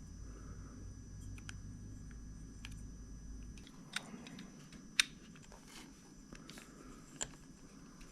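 Small plastic parts of a Snap-on cordless work light being handled and fitted together: a few scattered light clicks and taps, the sharpest about five seconds in.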